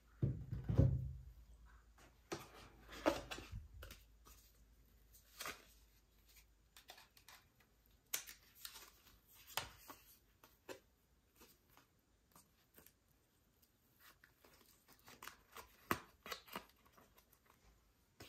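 Quiet unboxing handling noise: a soft low thump about a second in, then scattered light rustles, taps and clicks of a paper-wrapped charging cable and the box's cardboard tray being handled.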